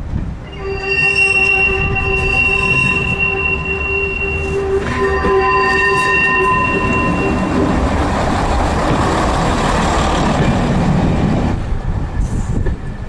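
AC Cars railbus W79978 running in at low speed, its wheels giving a long, steady, high-pitched squeal that breaks off briefly about five seconds in and fades by about seven seconds. A louder rush of running noise follows as the railbus passes close by, dropping away shortly before the end.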